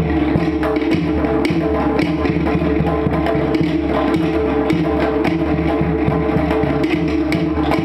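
Tahitian Ori Tahiti drum music: fast, driving strokes on wooden slit drums (to'ere) with drums underneath and a steady sustained tone beneath the rhythm.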